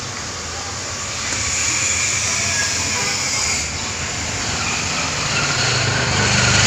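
Steady rumble and hiss of motor traffic, growing louder over the last couple of seconds.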